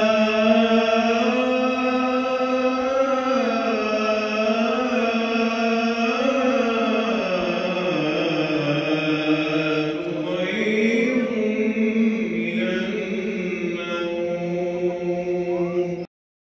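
A man's voice chanting alone in long held, slowly gliding notes with ornamented turns, in the style of an Islamic call to prayer or Quran recitation. It cuts off suddenly near the end.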